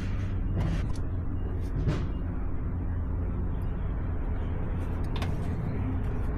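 A steady low rumble with a faint hum, broken by a few short knocks.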